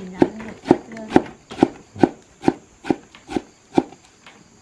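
Large kitchen knife chopping fresh herbs on a wooden cutting board: nine even chops, about two a second, stopping shortly before the end.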